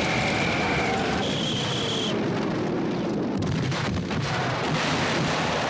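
Battle sound from a war film: a dense, steady roar of explosions and gunfire, with a tone that slowly falls through the middle and many short sharp cracks in the second half.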